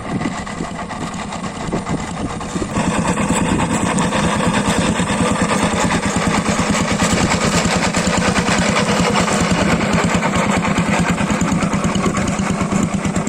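Small hand tractor engine running steadily with a fast, even firing beat; it gets louder about three seconds in and stays there.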